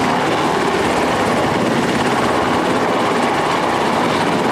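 Sikorsky S-70 Black Hawk helicopter running, its rotor and turbine noise loud and steady.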